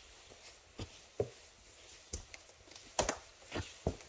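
Vinyl plank flooring popping and clicking under footsteps, about six sharp irregular clicks, the loudest about three seconds in. The planks flex into dips in the subfloor: the sign of poor surface prep before installation.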